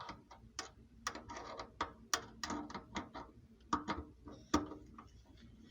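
Hand tool undoing the mounting screws of an old kitchen sink faucet: a run of irregular metal clicks and short scrapes, the loudest about four and a half seconds in.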